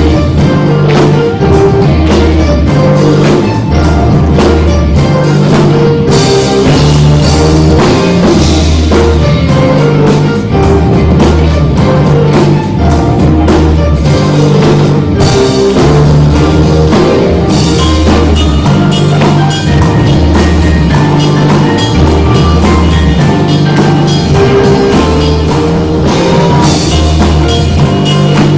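Loud band music with a drum kit keeping a steady beat over a repeating bass line.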